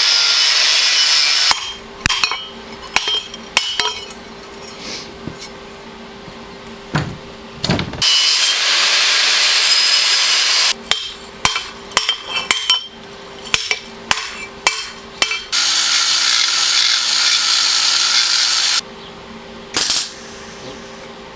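Electric welder laying tack welds: three bursts of steady crackling hiss, each a few seconds long. Between the bursts come quick metallic taps and knocks on the steel workpiece.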